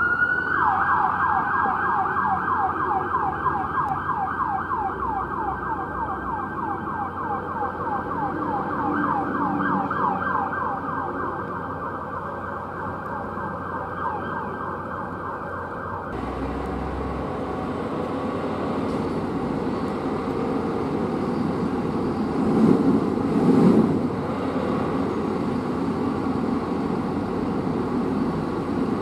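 Fire chief's SUV electronic siren in rapid yelp mode, fast rising sweeps repeating steadily. About sixteen seconds in it cuts off abruptly and gives way to a steady engine rumble from an idling fire engine, with two short louder bursts a few seconds later.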